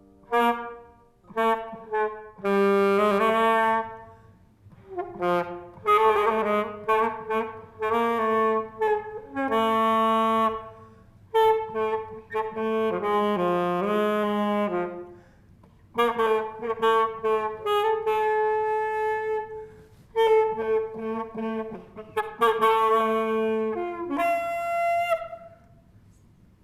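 Solo saxophone playing a melody in short phrases with brief pauses between them, stopping about two seconds before the end.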